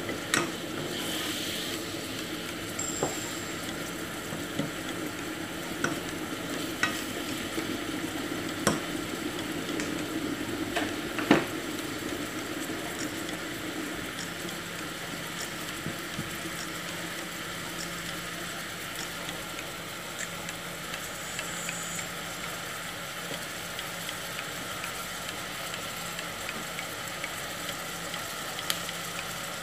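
Chicken pieces sizzling in a pot with a steady hiss, with a few sharp clinks of a utensil against the pot in the first dozen seconds and one more near the end.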